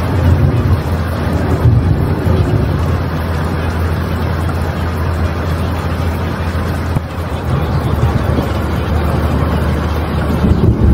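Subliminal background track: a steady rush of wind and water noise over a low, even hum, masking quietly layered affirmation voices.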